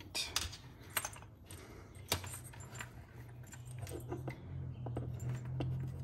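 Light scattered clicks and rattles of hands handling wires and a metal Deutsch HD 14-pin connector while a crimped pin is fed into the back of the connector. A low steady hum runs underneath, a little stronger in the second half.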